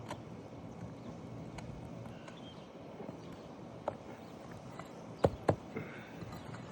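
Sharp knocks and taps from hand tools working on asphalt roof shingles during a shingle repair, the loudest two close together a little past the middle, over steady outdoor background noise.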